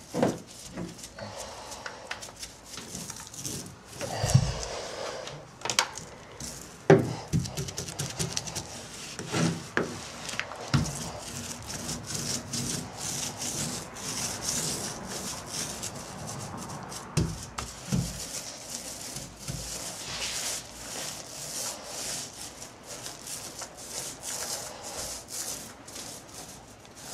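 Paint roller spreading gel coat over a fiberglass boat deck: a continuous wet rubbing with many fine clicks, broken by a few dull knocks.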